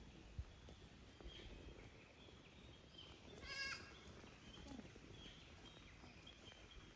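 A goat bleats once, briefly and high-pitched, over faint outdoor background noise.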